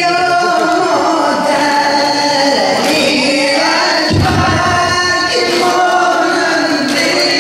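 Persian noha (Shia mourning lament) sung by a group of male mourners. About four seconds in comes a brief run of dull thumps, the mourners beating their chests (sineh zani).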